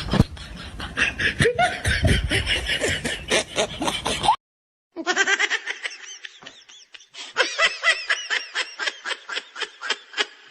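Two laughter sound effects one after the other: a burst of rapid laughing that cuts off about four seconds in, then after a brief silence a higher, rhythmic snickering laugh of quick repeated pulses.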